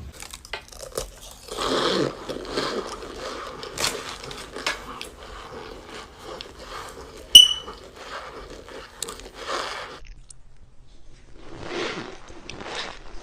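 Crunching and chewing as blocks of compressed cornstarch are bitten and chewed, with a run of crackly clicks. A single sharp, loud snap with a brief ring comes about seven seconds in, and there is a short lull before the crunching starts again near the end.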